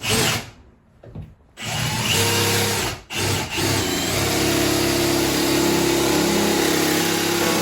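A power drill whirring in short bursts with brief gaps, running into steady background music about four seconds in.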